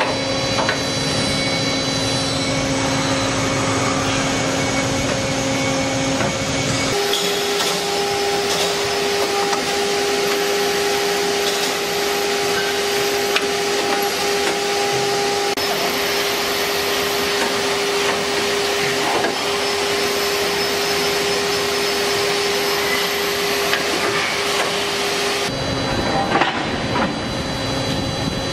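CNC beam drilling machine running and drilling steel: a steady motor and spindle whine over a noisy mechanical hiss, with scattered small clicks. The whine jumps to a higher note about seven seconds in and drops back to the first note about three seconds before the end.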